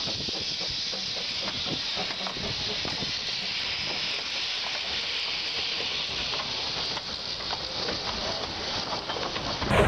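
Steady hiss of steam from a Hunslet narrow-gauge quarry steam locomotive, with faint knocks underneath. Near the end it switches abruptly to a louder, fuller running-train sound.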